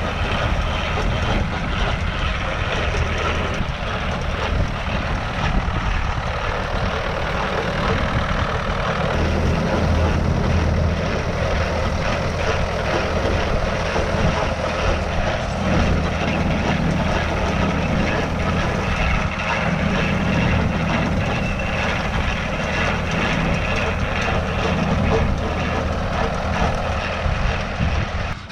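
Tractor engine running steadily while driving a New Holland 68 small square baler through the hay.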